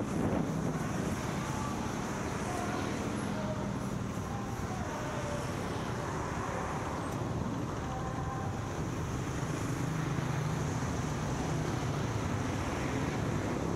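An engine running steadily with wind noise, a low even hum.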